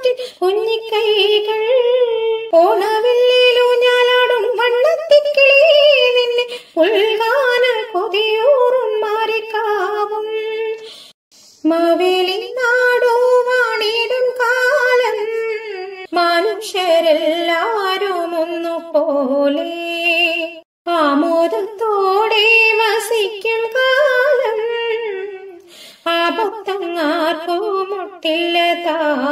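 Background music: a woman singing a melodic song in long phrases, with short breaks about eleven and twenty-one seconds in.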